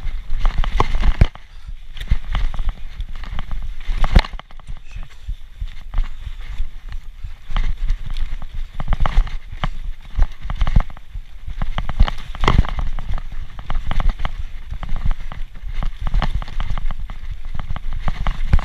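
Specialized Turbo Levo electric mountain bike rattling and knocking as it rides fast over bumps and roots on a dirt trail, with a constant low rumble of wind buffeting the microphone. Sharp, loud knocks come about four seconds in and again about twelve seconds in.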